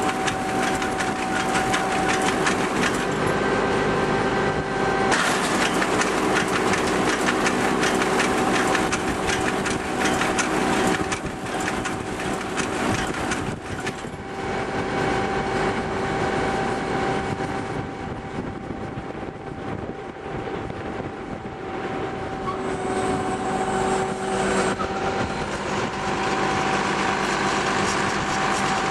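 Massey Ferguson 450 round baler running off a tractor's 540 PTO, its mechanism clattering steadily over the continuous drone of the tractor engine.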